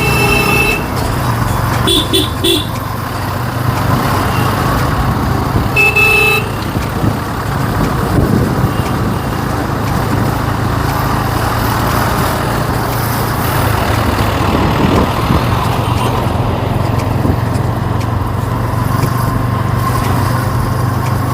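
Motorcycle riding along a road, its engine and road noise a steady low drone. A horn sounds at the start, three quick beeps about two seconds in, and one more about six seconds in.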